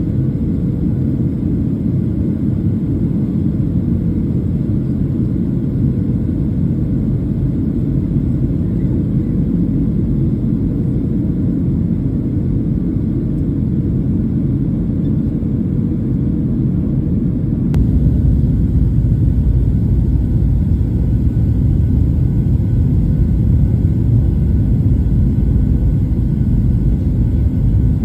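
Steady cabin noise of a jet airliner heard from a window seat: a low engine and airflow rumble. The rumble becomes abruptly louder and deeper about two-thirds of the way in.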